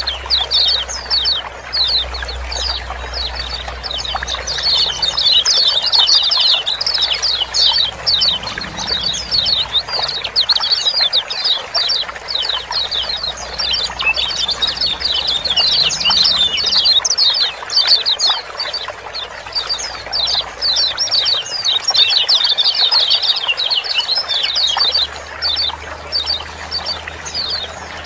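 Lemon-bellied white-eyes giving their rapid 'ciak-ciak' chirping calls, many short notes a second, dense and overlapping without pause. A steady hiss of running water lies beneath.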